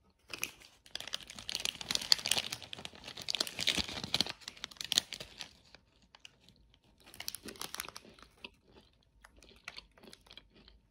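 Crisp-shelled Beard Papa choux cream puff being bitten into and chewed, with paper wrapper crinkling. A dense crackling lasts about five seconds, a shorter burst follows a couple of seconds later, then only faint scattered ticks.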